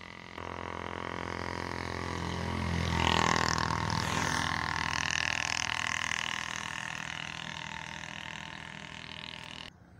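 A motor vehicle's engine droning as it goes past, growing louder over the first three seconds and then slowly fading.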